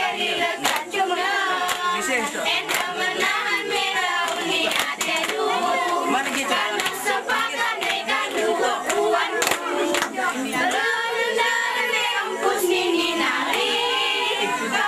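A group of young women chanting in unison for the seated mesekat dance, with sharp hand claps and body slaps cutting through the singing.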